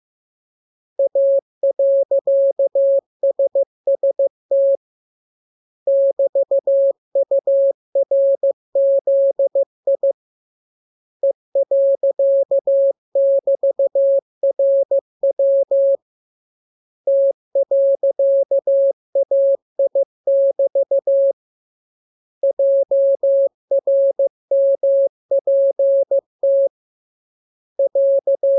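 Morse code sent as a single pure tone of about 600 Hz, keyed in rapid dots and dashes. It comes in groups of characters about four seconds long, with a pause of about a second between groups, as in a receiving-practice radiogram of code groups.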